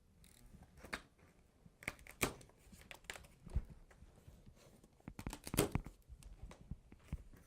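Cardboard and plastic packaging on a printer finisher's shipping box being torn open and handled: irregular tearing, crinkling and sharp clicks and knocks.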